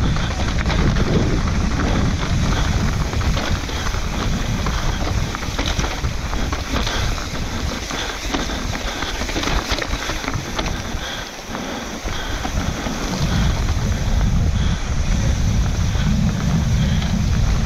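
Wind rushing over the microphone with mountain bike tyres rolling on dirt trail during a fast descent, easing briefly about eleven seconds in.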